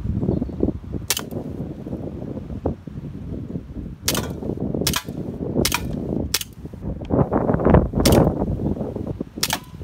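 Colt M45 CQBP CO2 blowback BB pistol firing seven shots, unevenly spaced about a second apart, with wind buffeting the microphone.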